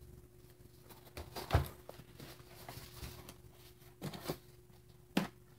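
A cardboard box of stick-on lead wheel weights being handled and its lid opened: a few scattered light knocks and scrapes of cardboard, the loudest about a second and a half in, with more around four and five seconds in.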